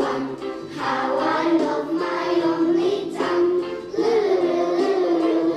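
A group of children singing an English song together in unison, with musical accompaniment.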